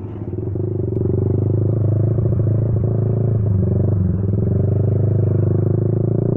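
Honda CB150R's single-cylinder engine running through a WRX Trioval K2 aftermarket exhaust with a deep, bassy note. It grows louder over the first second, then holds steady, with a brief dip in pitch just past the middle.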